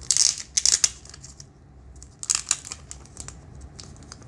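Clear plastic sleeve of a photo card pack crinkling as it is handled and pulled open. It comes in short bursts, the loudest in the first second and another a little past two seconds, then lighter rustles.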